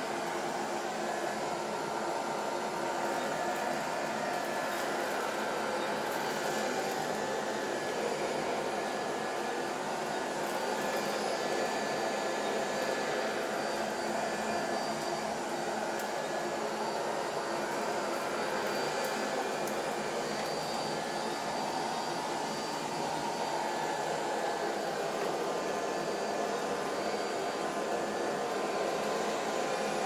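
ILIFE V50 robot vacuum running steadily across a carpet, its suction fan and brushes making an even hum while it picks up scattered buckwheat, with a few faint ticks.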